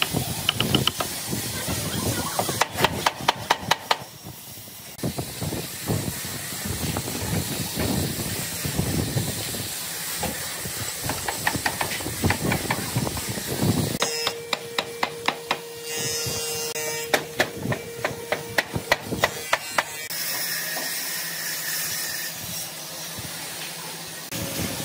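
Woodworking shop noise: a steady hiss with runs of rapid sharp knocks or taps in a few separate stretches, changing abruptly between them.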